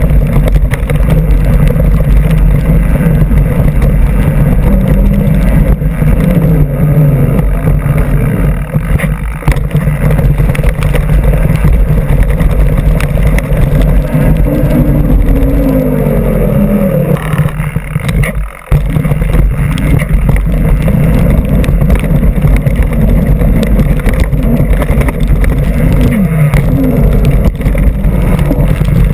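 Constant low wind rumble and buffeting on a fork-mounted camera riding on a mountain bike, mixed with tyre and trail rattle as the bike rolls over dirt and sand. The noise drops out briefly a little past halfway.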